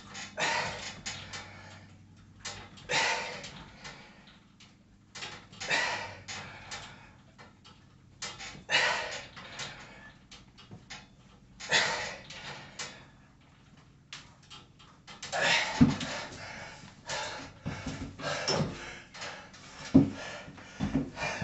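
A man's forceful exhalations as he does pull-ups, about one breath every three seconds, one per rep. Near the end a few sharp knocks and clunks from the pull-up tower as he comes down off the bar.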